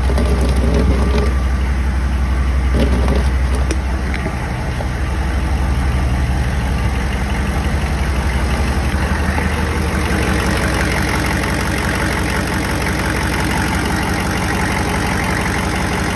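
GM 6.5 L turbo diesel V8 idling with its diesel clatter, now running on a replacement injection pump and a fluid damper that have smoothed the idle. A few handling knocks come early, and the engine sound grows clearer and sharper from about ten seconds in, as the microphone nears the engine bay.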